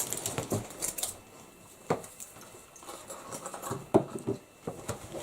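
Plastic containers being handled and set down on a table: scattered light clicks and rattles, with two sharper knocks about two seconds and four seconds in.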